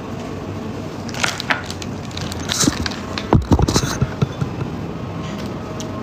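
Knocks, clatter and rubbing as the filming phone is picked up and handled, loudest about three and a half seconds in, over a steady background noise.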